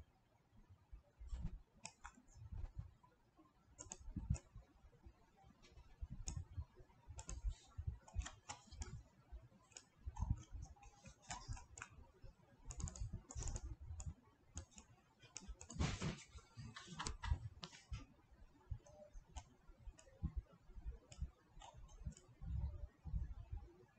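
Scattered clicks of a computer mouse and keyboard as a 3D model is worked on, with a dense run of clicks about sixteen seconds in.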